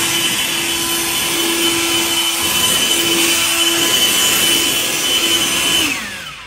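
Handheld leaf blower running steadily with a constant whine, then switched off about six seconds in, its pitch falling as the fan spins down.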